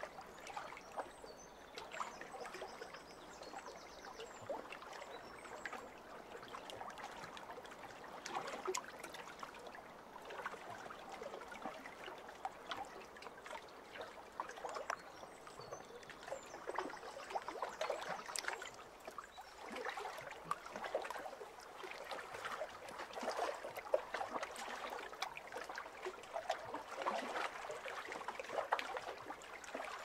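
Small lake waves lapping and splashing against shoreline rocks: a steady wash of water with irregular little splashes, swelling louder every few seconds as bigger waves come in.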